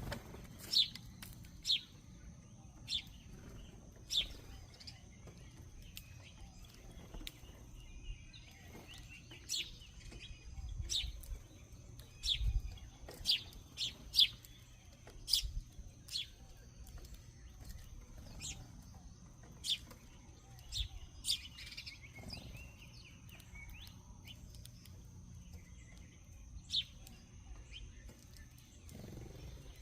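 Backyard birds chirping: short, sharp, high chirps at irregular intervals, about two dozen of them, over a faint steady high whine.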